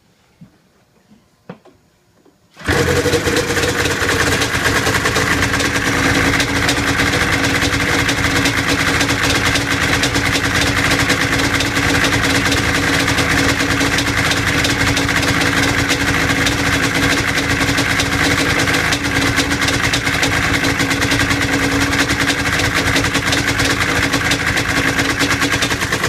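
Ski-Doo Blizzard 9500 snowmobile engine starting. After a few faint knocks it catches suddenly about two and a half seconds in, then runs at a steady, even idle.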